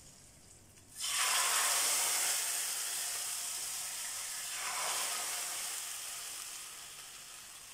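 Hot oil with fried dried mint and chili flakes sizzling as it is poured from a small frying pan onto tarhana soup. The hiss starts suddenly about a second in, swells again around the middle, and slowly fades.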